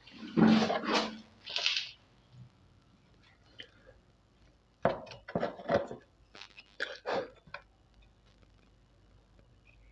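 Small parts and tools being handled during an LED bulb repair: a scrape and rustle near the start, then two quick runs of light clinks and clicks in the middle.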